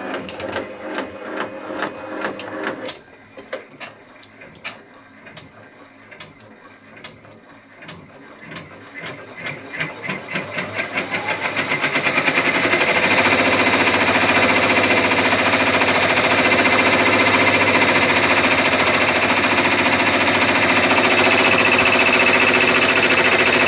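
Brother PR1055X ten-needle embroidery machine stitching out a design. It begins with separate, slower stitch strokes, speeds up over several seconds, and from about halfway in runs at a steady fast stitch rate.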